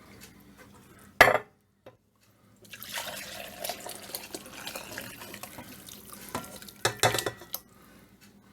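Cooking juices being poured out of a pot into a measuring cup, a steady liquid pour lasting several seconds. There is a sharp knock of cookware about a second in, and a couple of clinks near the end.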